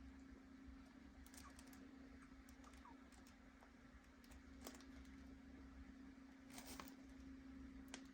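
Faint, scattered clicks and crackles from a tied plastic trash bag, over a steady low hum.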